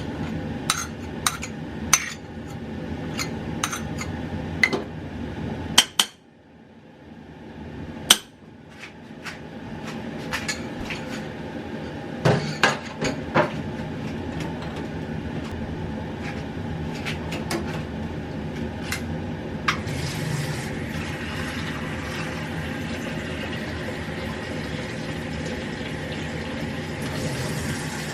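Kitchen utensils and dishes clinking and knocking while ingredients are handled, with a short lull a quarter of the way in. From about two-thirds of the way in a steady hiss sets in under the clatter.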